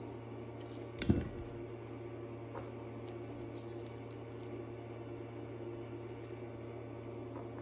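Small metallic clicks and taps of watchmaking tools working on a watch movement, with one sharper tap about a second in and a few fainter ticks after it, over a steady low hum.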